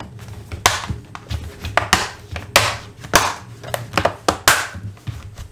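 Plastic bottom case of a Lenovo IdeaPad 3 laptop being pressed down around its edges, its clips snapping into place: a dozen or so sharp, irregular clicks and snaps.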